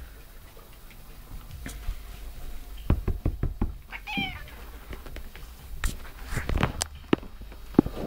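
A cat gives one short meow about four seconds in, among several clusters of sharp knocks and taps.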